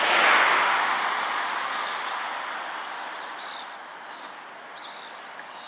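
A vehicle passes by, loudest just as it goes past, then fading away over several seconds. Short bird chirps sound a few times in the second half.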